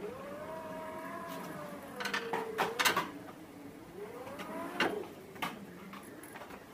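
Sharp metal knocks and clatters as a homemade ride-on miniature locomotive is set onto its steel rails, the loudest about three seconds in. They sit over a long, wavering voice-like tone that slides up and down.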